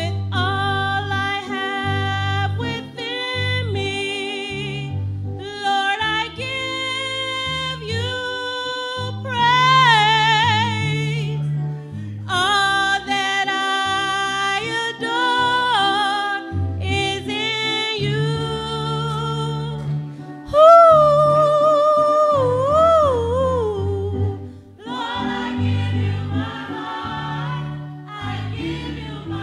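Church choir singing a gospel song, several voices together over low sustained bass notes. About two-thirds of the way through, a single voice with wide vibrato rises above the rest and is the loudest part.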